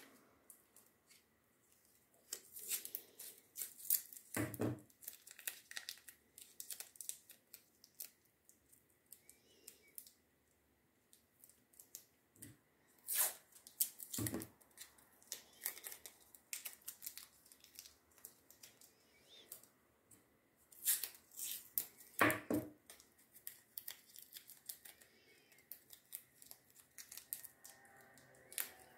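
Small scraps being crumpled and torn between the fingers: irregular dry crinkling and crackling, with a few louder crackles.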